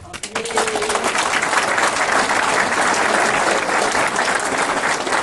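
Audience applauding, starting a moment in and building quickly to a steady, loud round of clapping.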